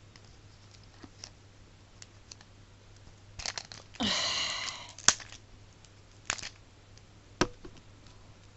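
Plastic wrapping on a Mini Brands capsule ball being picked at by fingers: scattered small crinkles and clicks, a short tearing crackle about four seconds in, then a few sharp clicks. It is hard to open without fingernails.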